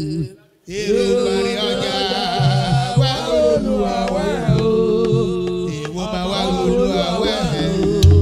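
A man singing a chant in Yoruba into a microphone over a musical backing. The sound cuts out completely for a moment about half a second in.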